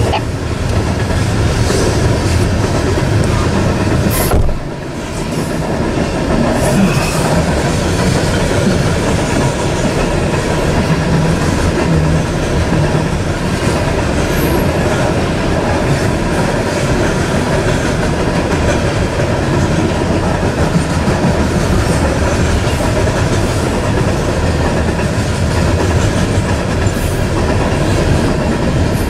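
Freight train of open-top hopper cars rolling steadily past close by, steel wheels running on the rails. The sound dips briefly about four and a half seconds in.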